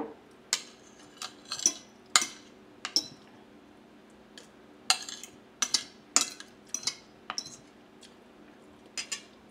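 Metal spoon and fork clinking and scraping on a ceramic plate: a string of sharp, irregular clinks, some in quick pairs.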